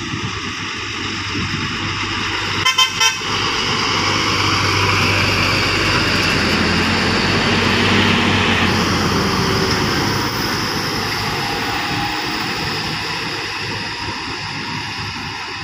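A Bicol Isarog coach and a box truck climbing an uphill curve, their diesel engines and tyres running as they pass close by. The sound is loudest as the coach goes past and then fades as they pull away. A vehicle horn gives a few quick toots about three seconds in.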